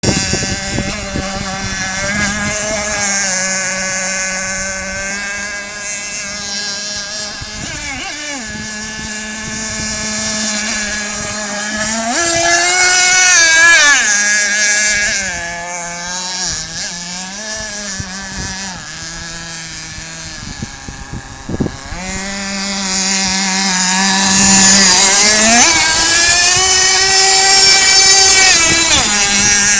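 Pro Boat Shockwave 36 RC boat's .32 nitro two-stroke glow engine running at speed on the water, its pitch rising and falling with throttle and turns. It steps up in pitch and swells loud twice, about halfway through and near the end as the boat passes close.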